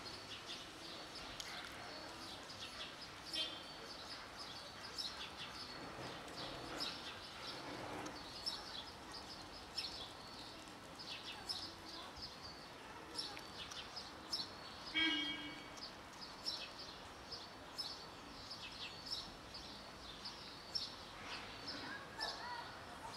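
Small birds chirping: many short high chirps throughout over faint steady background noise. One brief, louder pitched call about two-thirds of the way through.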